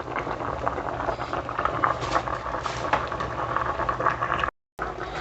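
Pot of spaghetti in rapidly boiling water, bubbling and crackling steadily, with a faint low hum underneath. The sound cuts out completely for a moment near the end.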